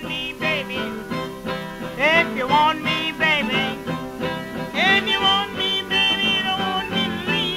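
Old acoustic blues recording playing: plucked guitar with a lead line that bends up and down in pitch.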